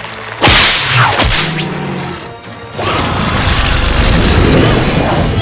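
Cartoon sound effects: a sudden whack about half a second in, then from about three seconds in a long, loud crashing and smashing, over music.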